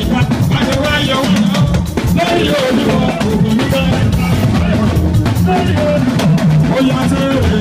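Live Nigerian juju band music played loud through a hall PA system, driven by drums and percussion with a steady beat and melodic lines over it.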